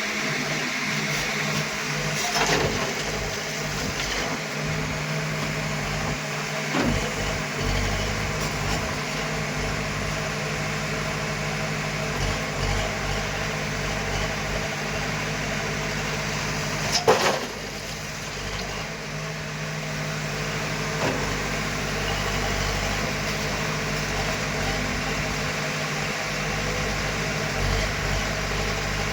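Heavy machinery's diesel engine running steadily, with a few knocks, the loudest one about seventeen seconds in.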